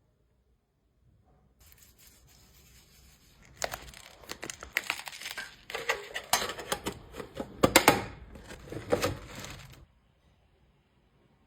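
Packaging material being handled: a few seconds of crackly tearing and crinkling with many sharp snaps, loudest near the end, then it stops.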